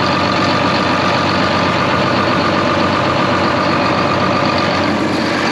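John Deere 4755's six-cylinder diesel engine running steadily at idle, with a faint steady whine above it, while its air-conditioning system runs for charging.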